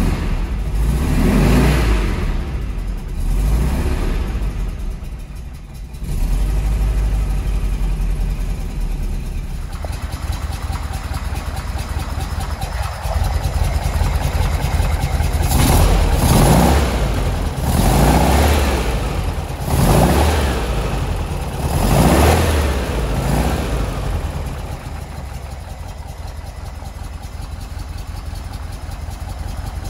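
1964 Porsche 356 SC's rebuilt 1,720cc air-cooled flat-four engine running, swelling in revs a few times in the first third, then revved in four quick blips about two seconds apart around the middle, each falling straight back, before settling to a steady idle.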